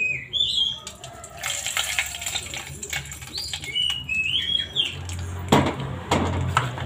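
Small birds chirping with short, repeated high calls throughout. A single clank about five and a half seconds in as a metal wok is set down on the gas stove's grate, followed by a low hum.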